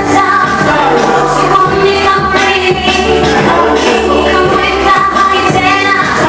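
Gospel song performed live: a woman singing lead through a microphone over loud amplified backing music with held bass notes and a steady beat.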